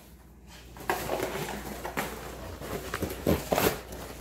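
A husky tearing and chewing a cardboard box with its teeth: crackling, scraping cardboard starting about a second in, with a few louder rips near the end.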